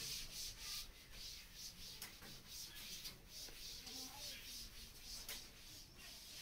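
Faint, scratchy strokes of writing by hand, several a second, coming in quick bursts.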